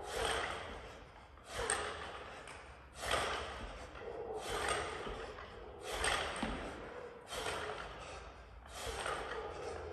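Heavy, rhythmic breathing of a lifter winded mid-set during barbell shoulder-to-overhead reps, a forceful breath about every second and a half.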